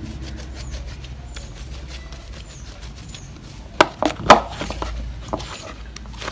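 Chapati dough being kneaded by hand in a plastic bowl: soft rubbing and pressing, with a cluster of sharp knocks as the dough is pushed against the bowl about four seconds in.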